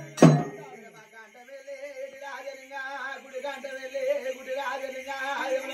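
One last drum stroke just after the start, ringing away, then a man's voice chanting a devotional Mallanna song in a sing-song melody over a steady held note.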